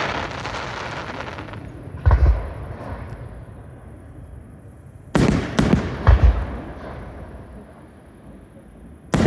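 Fireworks display: aerial shells bursting with loud bangs that echo and fade. There is one bang about two seconds in, then three in quick succession a few seconds later, and another just at the end.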